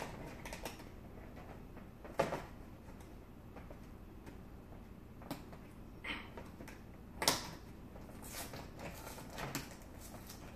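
Cardboard collection box being handled and pulled at by hand while someone tries to get it open: scattered knocks and scrapes of cardboard, the sharpest about seven seconds in.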